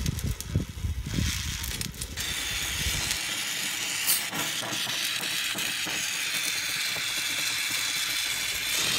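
Oxy-fuel torch flame hissing while brass filler rod is brazed onto a steel disc. A low rumble for the first two seconds or so, then a steady higher hiss with a faint click or two.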